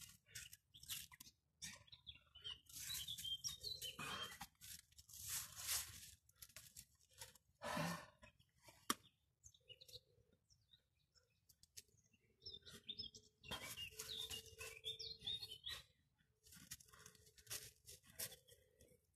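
Faint, irregular rustling and crunching of dry fallen leaves, with birds chirping a few seconds in and again later.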